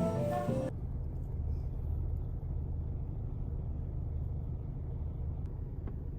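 Background music that stops under a second in, followed by a steady low rumble.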